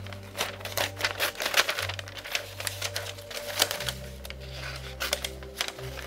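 Scissors snipping newspaper in a quick run of sharp cuts, with paper handling, thinning out about two thirds of the way in and picking up again near the end. Soft background music with held low notes plays underneath.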